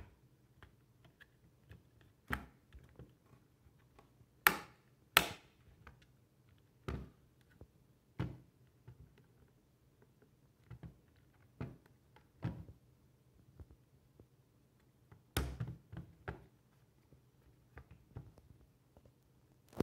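Irregular clicks and knocks from the hard plastic case of a Fluke 279 FC multimeter being pressed and handled on a table and turned over, with the sharpest pair of clicks about five seconds in and another loud one about fifteen seconds in.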